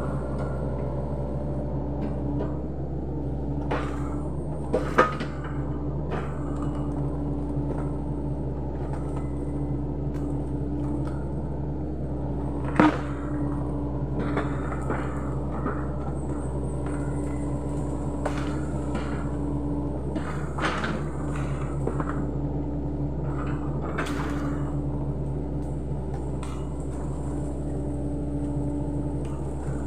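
Sany SY75C excavator's diesel engine running steadily under work, with occasional sharp knocks and clunks, the loudest about 5 and 13 seconds in.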